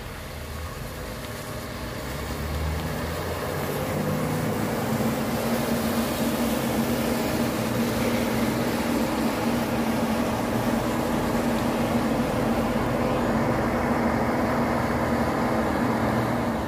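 Heavy truck's diesel engine running at steady revs, getting louder over the first few seconds as the truck draws near, over a steady hiss of rain and wet road.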